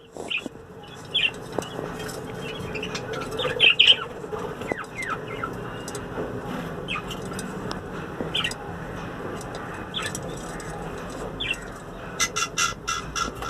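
Budgerigars chirping in short, scattered calls, with a quick run of chirps near the end.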